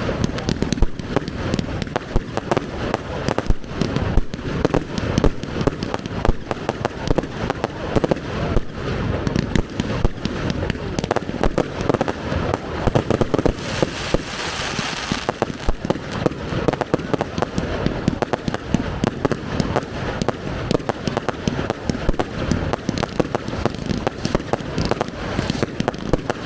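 Professional fireworks display: shells bursting in a rapid, continuous barrage of bangs, with a stretch of hissing crackle about halfway through.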